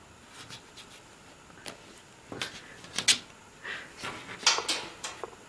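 A cat rolling and pawing on carpet against a skirting board: irregular scratchy rustles and light taps of claws and fur, loudest about three seconds in and again a little after four seconds.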